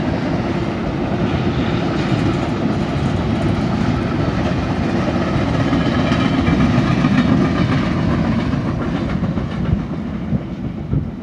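Double-stack intermodal freight cars rolling past: a steady rumble and clatter of steel wheels on rail, fading near the end as the last cars go by.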